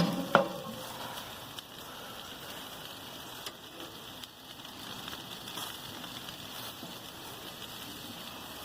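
Chicken sizzling on a hot grill: a steady hiss with faint scattered crackles, after a couple of sharp knocks right at the start.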